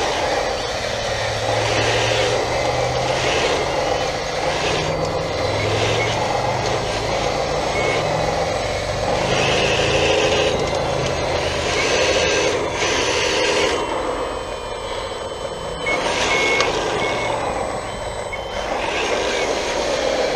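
1/14-scale hydraulic RC wheel loader working: its sound unit plays a diesel-truck engine with reversing beeps that come and go, over the wavering whine of its electric hydraulic pump and drive as it reverses and lifts its bucket.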